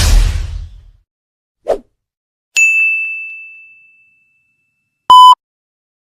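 A sequence of stock sound effects: the tail of a whoosh fading in the first second, a short low blip, then a bright bell-like ding that rings out for about a second and a half. Near the end comes one short, very loud beep.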